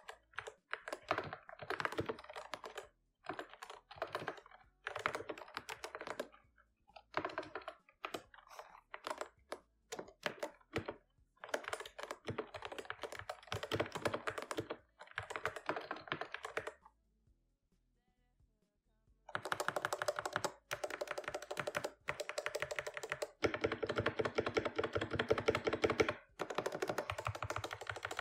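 Mechanical keyboard being typed on in quick runs of key clacks, with a pause of about two seconds past the middle before fast typing resumes.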